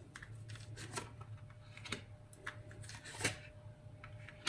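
Tarot cards being handled and drawn from the deck: soft rustles and small clicks, with one sharper snap of a card about three seconds in.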